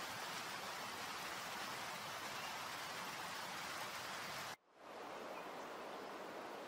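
Steady, even hiss of outdoor background noise. It cuts out abruptly about four and a half seconds in and returns within half a second, slightly quieter.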